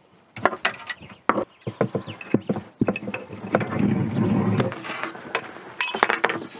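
A wrench loosening and unscrewing the fittings of an old propane solenoid valve: a run of sharp metal clicks and knocks, a longer rough scraping stretch about halfway through, and a quick cluster of ringing metal clinks near the end.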